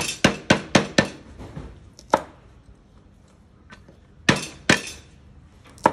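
Steel cleaver chopping green beans on a wooden chopping board. A quick run of five chops comes first, then a single chop, then two more and one last chop near the end.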